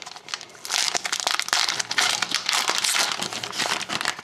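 Foil wrapper of a 2011-12 Upper Deck SP Authentic hockey card pack crinkling as it is torn open, a dense run of crackles that starts just under a second in.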